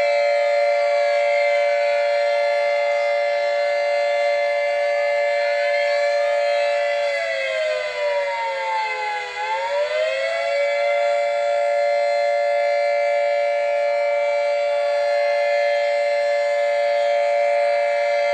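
Warning siren sounding a steady, loud chord of several tones at once. About eight seconds in, part of the sound dips in pitch and climbs back up within about two seconds, and a fainter tone slides down and back up earlier on.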